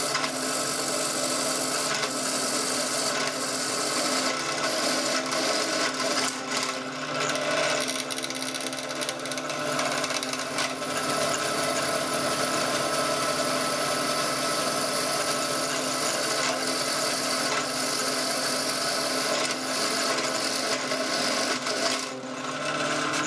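Bench drill press running, its twist bit cutting into a steel flat bar: a steady motor hum under a continuous scraping from the cut.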